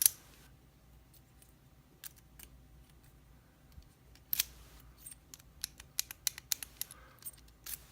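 Brinks 40 mm stainless steel padlock being handled, its shackle and key worked: scattered small metallic clicks, one louder about halfway through and a quick run of them near the end.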